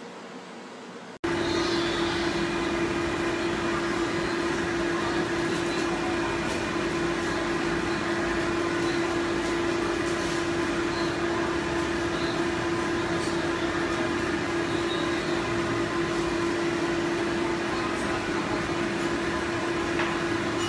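Electric pet-grooming blow dryer running steadily: a constant motor hum over rushing air. It starts suddenly about a second in, after faint hiss.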